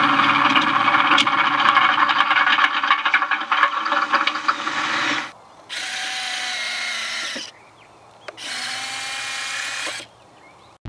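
Radio-controlled model Spitfire's retractable landing gear whirring as it is cycled: one long run of about five seconds, then two shorter runs with brief pauses between.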